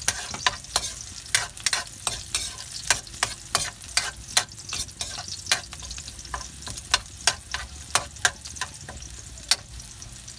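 Metal ladle scraping and knocking against a wok in quick, uneven strokes, about three a second, as garlic and onion sauté in hot oil with a light sizzle. The strokes stop about a second before the end, leaving the sizzle.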